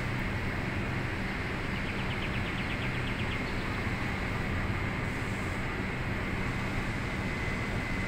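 Steady low mechanical hum with a constant hiss, and a brief rapid run of high ticks lasting about a second and a half, about two seconds in.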